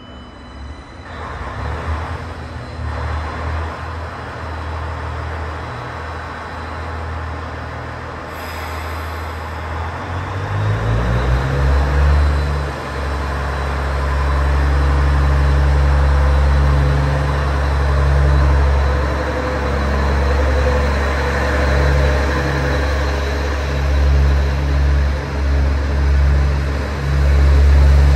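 HC85 series hybrid diesel train pulling away. At first it runs quietly on its electric traction motors. About ten seconds in, its diesel engine-generator revs up and then runs loud and steady with a deep hum as the cars roll past.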